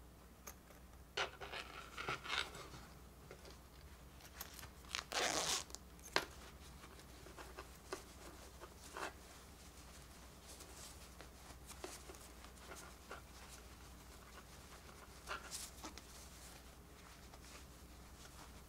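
Zipper of a plush toy sheep's removable fleece coat being worked open, with rustling of the plush fabric under the hands. Scattered short rasps and rustles, the longest about five seconds in.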